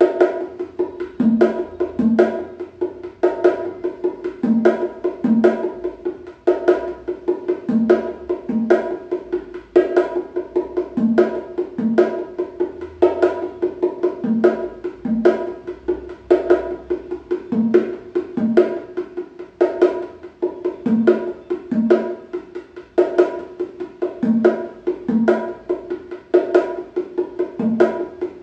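A pair of bongo drums played by hand in a steady, repeating practice pattern: quick slaps and tones on the small drum, with pairs of deeper strokes on the larger drum coming back about every three seconds.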